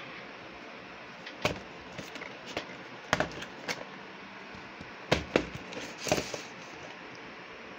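Plastic VHS tapes and their cases being handled: irregular clicks and clacks, with a cluster about three seconds in and the loudest pair about five seconds in.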